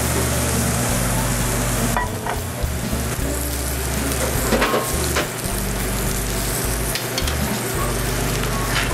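Ribeye steak sizzling on a hot Himalayan salt block inside a wood-fired brick oven: a steady searing hiss with a few sharp pops.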